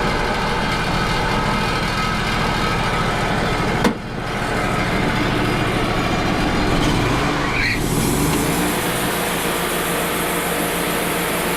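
Wood-Mizer LT35 portable sawmill running with its bandsaw blade cutting through a log, a steady mechanical drone. A sharp click comes about four seconds in, and the machine's note shifts, with a rising tone, about eight seconds in.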